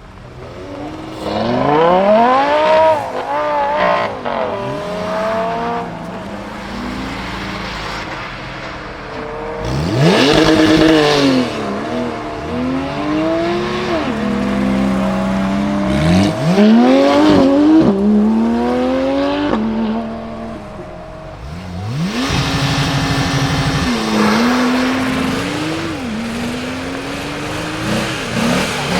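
High-performance car engines revving hard and accelerating away, their pitch climbing and dropping back with each gear change. The loudest bursts come about two, ten and seventeen seconds in. From about twenty-two seconds a steadier, lower engine note with a rumble takes over.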